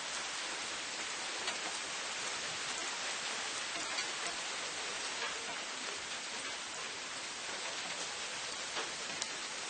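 Steady rain falling, an even hiss with a few separate drops ticking close by now and then.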